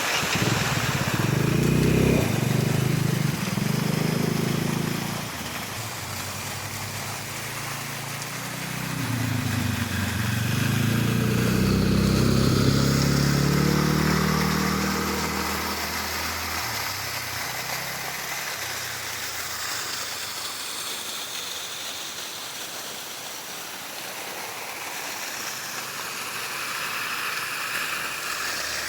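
TVS Ntorq scooter engine pulling up in pitch twice, in the first few seconds and again around ten to fifteen seconds in, then dropping back and fading under a steady rushing hiss.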